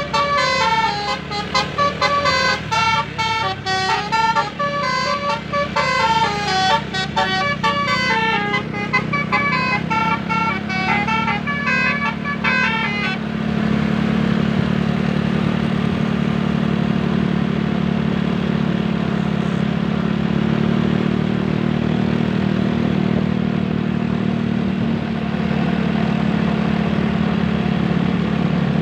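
A bus's telolet basuri musical horn plays a fast melody of stepping notes running up and down for about thirteen seconds, then stops. After it, only the steady running of vehicle engines and road noise remain.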